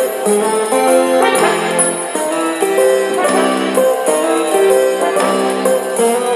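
Instrumental music: held chords that change every second or so, with a bright shimmer on top.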